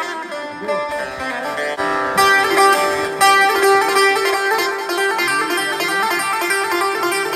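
Background instrumental music of plucked string instruments over a sustained low note, growing fuller about two seconds in.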